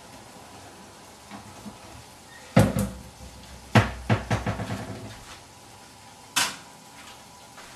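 Kitchen clatter of dishes, pots or cupboards being handled: two quick knocks a little over two and a half seconds in, a louder knock near four seconds followed by a fast run of smaller clicks, and one more knock about six and a half seconds in.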